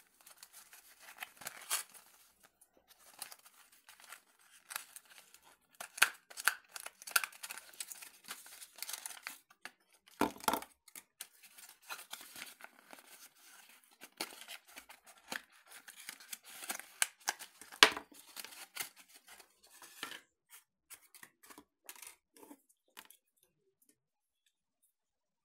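Cardboard and plastic packaging being handled as a small box is opened and emptied: irregular crinkling, rustling and scraping, with a heavier thump about ten seconds in and a sharp click a little before eighteen seconds.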